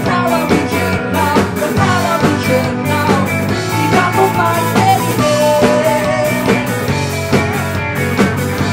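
Rock band playing live, with electric guitars and a drum kit keeping a steady beat, and a male singer's voice over them.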